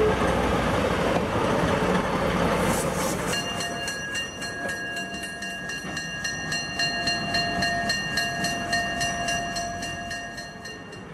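Plymouth switcher locomotive running close by, a low even rumble. About three seconds in, this gives way to a bell ringing quickly and steadily, about four strikes a second, as the switcher approaches.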